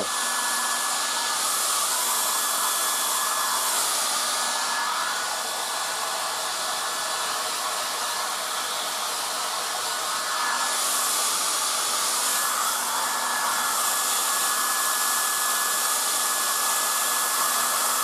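1980s Black & Decker Stowaway travel hairdryer with its concentrator nozzle fitted, running steadily below its top setting: a rush of air with a thin, steady whine, the rush swelling and easing as the dryer is moved around the head.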